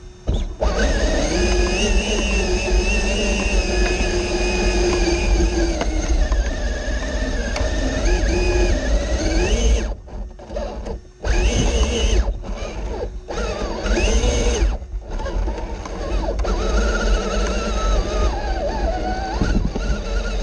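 Axial SCX6 RC rock crawler's electric motor and geartrain whining under throttle, its pitch wandering up and down with the load of the climb over a low drivetrain rumble. It cuts out abruptly several times near the middle as the throttle is let off and reapplied.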